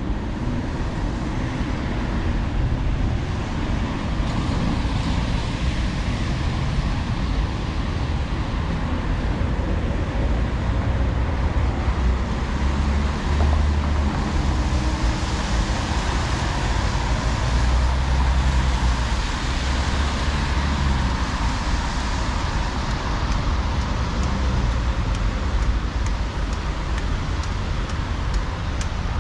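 City street traffic noise: a steady low rumble of cars and other road vehicles, with tyre hiss swelling as vehicles pass around the middle.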